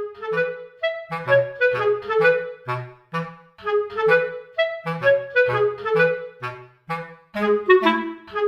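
Background music: a melody of short pitched notes over a bass line, starting suddenly out of silence.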